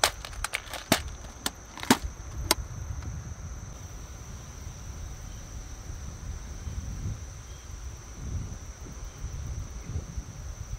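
Insects, such as crickets, droning steadily on one high, thin pitch over a low rumble. About seven sharp clicks and knocks come in the first two and a half seconds, the loudest sounds here.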